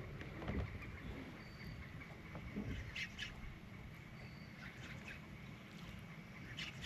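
Faint open-air ambience on a bass boat: a low steady rush of wind and choppy water, with a few short, faint high-pitched sounds about three, five and six and a half seconds in.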